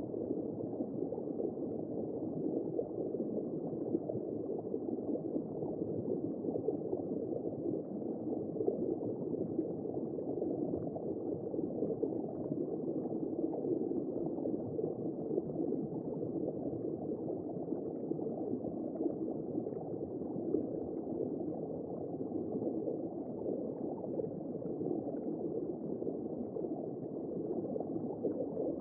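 Womb-sound white noise: a steady, muffled low whooshing noise with nothing above about 2 kHz and no clear beat.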